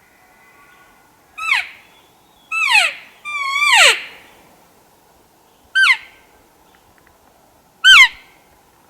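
Elk calling: five short, high-pitched calls that each fall steeply in pitch. The third is the longest and wavers before it drops.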